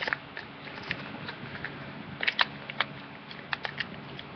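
Sheet of paper being folded and handled: sharp crinkles and crackles from the creases, in a few irregular clusters, the loudest about two and a half seconds in.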